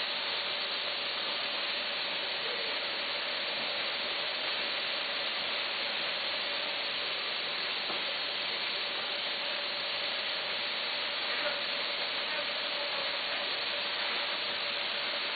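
Steady machine noise, an even hiss with a faint steady whine underneath, from a running vertical snack packaging machine.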